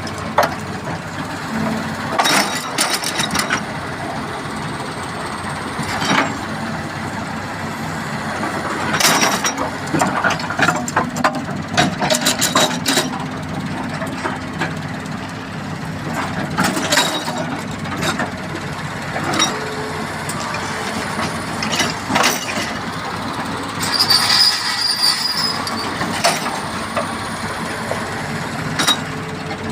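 Irregular metal clanks and knocks over a steady running hum of heavy machinery, typical of work on an excavator's steel track chain. A brief high-pitched scraping noise comes near the end.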